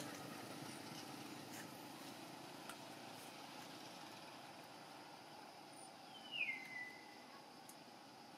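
Faint outdoor ambience with a steady low hiss. About six seconds in, one short high call slides down in pitch and then holds briefly.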